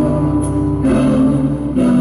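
Male vocal group singing long held notes in close harmony, live; the chord changes about a second in and again near the end.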